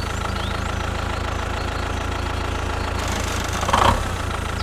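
Tractor engine running steadily with an even, low-pitched drone, and a brief higher-pitched sound about four seconds in.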